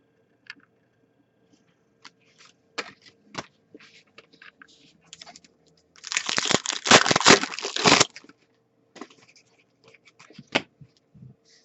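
A hockey card pack wrapper torn open in one noisy stretch of about two seconds, midway through, with light clicks and rustles of trading cards handled before and after.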